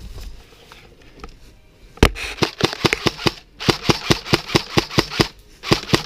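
Airsoft rifle firing three strings of rapid shots, about six or seven a second, starting about two seconds in with short pauses between the strings.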